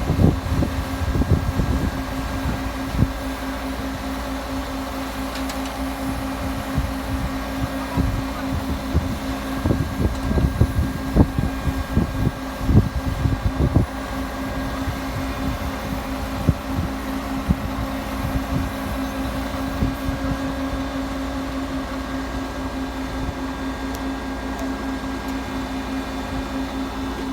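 A machine motor running with a steady, even hum, with irregular low knocks and thumps over roughly the first half.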